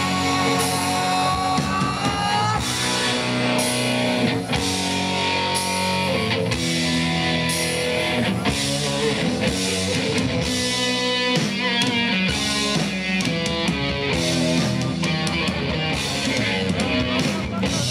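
Live rock band playing an instrumental passage with electric guitar, bass guitar and drum kit, without singing.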